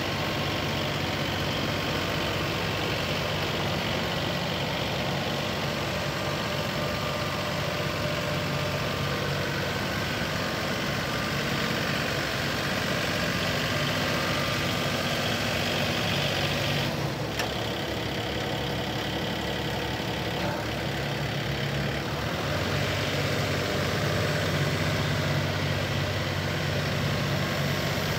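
Kubota L3901 compact tractor's three-cylinder diesel engine running steadily while the tractor drives. There is a single sharp clank a little past halfway, and the engine note grows stronger near the end.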